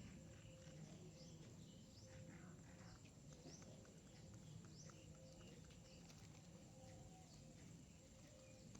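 Faint bird chirps, short rising notes scattered through, over a scatter of small quiet clicks and a low steady hum.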